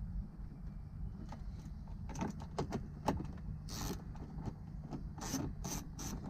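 Hands fitting a Honda Pilot's rear-view mirror and its plastic mount parts at the top of the windshield: a string of sharp plastic clicks and short scrapes from about two seconds in, over a steady low hum.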